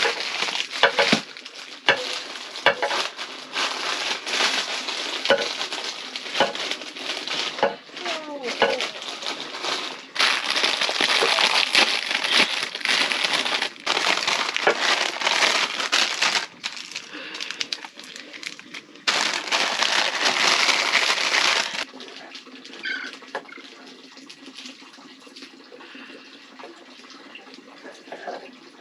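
Plastic instant-noodle packet crinkling and rustling in the hands, in dense crackly bursts, going quiet near the end.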